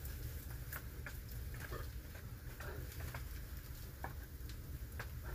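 Wood campfire crackling, with irregular sharp pops several times a second as its burning sticks are poked and shifted, over a low steady rumble.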